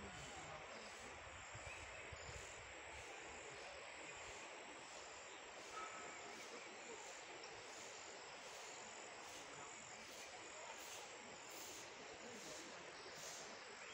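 Faint, steady outdoor background hiss, with faint high ticks repeating about once a second.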